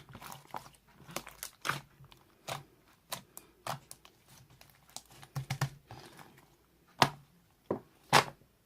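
Slime being squeezed and stretched by hand, with irregular sticky pops and crackles as air pockets burst. The two loudest pops come near the end.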